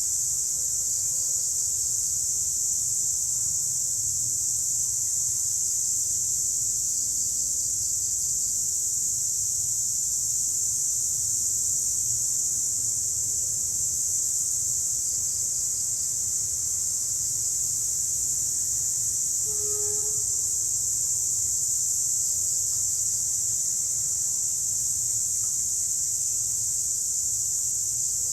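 A chorus of cicadas buzzing as one steady, high-pitched drone that holds at an even level throughout.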